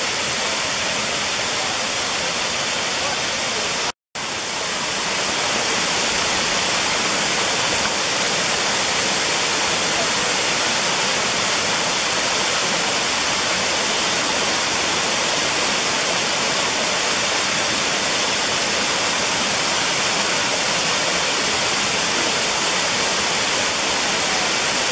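A waterfall about 25 feet high, pouring over rock ledges into a pool, makes a loud, steady rush. The sound breaks off for an instant about four seconds in.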